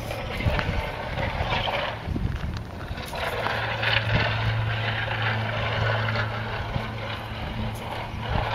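A distant engine drones steadily and low over a rushing background noise; the drone weakens around two seconds in and comes back stronger from about three seconds.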